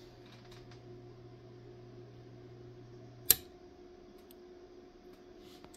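Astron RS-35M linear power supply humming steadily from its transformer, then its rocker circuit breaker, fitted as the power switch, clicks off sharply about three seconds in and the hum stops at once.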